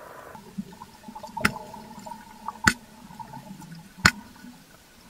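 Cowtail stingray clicking underwater: three sharp clicks a little over a second apart, over faint water noise. The clicks come from the spiracles on top of the head, a response to a perceived threat.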